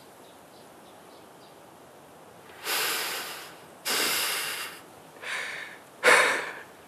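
A man breathing heavily: about four loud, drawn breaths, one after another, starting after a couple of seconds of quiet.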